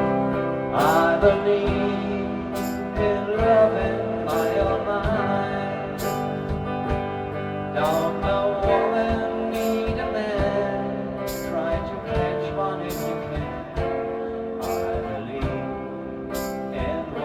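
A rock band playing a song on guitar, bass and drums, with a sharp drum or cymbal stroke on an even beat a little more than once a second.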